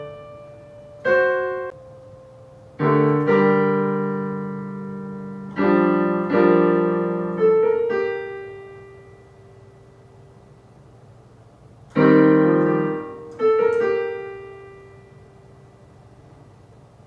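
Piano chords played slowly and haltingly: single chords or short groups, each left to ring and die away, with pauses of several seconds between them, typical of a child practising.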